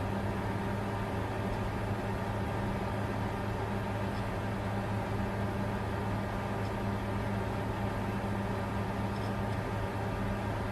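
Bitcoin mining computer running steadily under load: a constant rushing noise from its cooling fans over a low, even hum.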